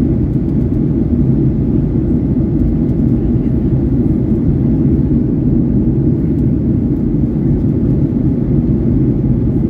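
Steady low rumble inside the cabin of a Boeing 737-900ER during its climb after takeoff: the CFM56-7B engines and rushing airflow, heard from a window seat behind the wing.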